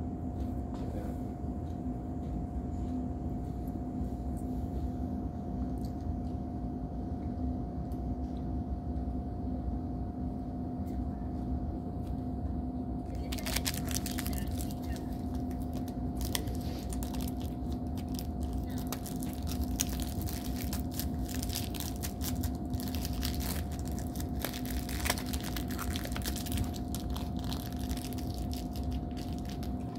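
Plastic snack wrappers crinkling and rustling as they are handled, starting about halfway through, over a steady low hum.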